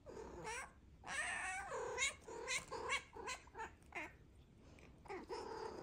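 Domestic cat vocalizing: a meow at the start, a longer meow that glides in pitch about a second in, then a quick run of short chirping meows, and one more meow near the end.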